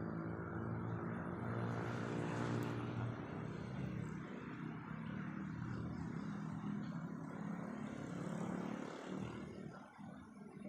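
An engine running steadily with a low, even hum, fading away near the end.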